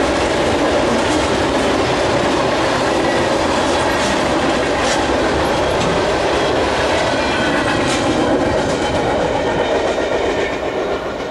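Freight cars rolling past: steady wheel-on-rail rumble with clacking over the rail joints, fading away near the end as the last car passes.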